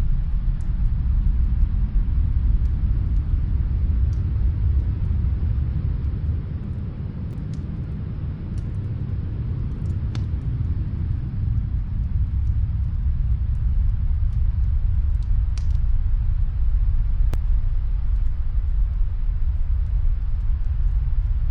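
Snowstorm wind making a deep, steady rumble that eases a little partway through, with faint, scattered crackles from a wood fire.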